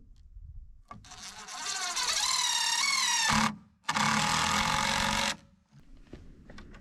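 Power drill/driver running screws in two bursts of a couple of seconds each, its motor whine rising in pitch during the first.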